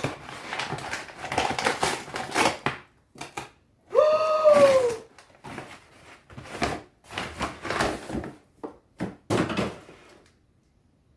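A parcel's packaging being torn open and handled: irregular bursts of rustling and ripping with short clicks, and one brief squeak, rising then falling, about four seconds in.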